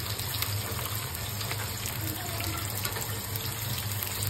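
Sliced onions sizzling in hot oil in an iron kadhai, a steady hiss with small crackles as they begin to fry.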